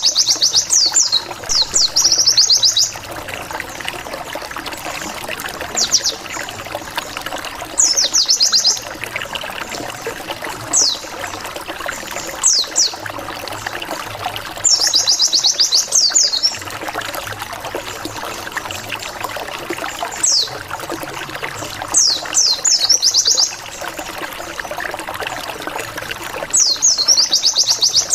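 White-eye (pleci) lure song: bursts of rapid, very high sweeping chirps, a 'wit wit wit' ngalas-style song, repeating every few seconds over a steady trickling background noise.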